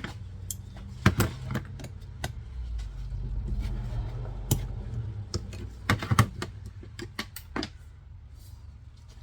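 Irregular clicks and taps of small metal and plastic parts being handled on a table: the clutch bleeder line and its fittings being swapped onto a slave cylinder, over a low steady hum.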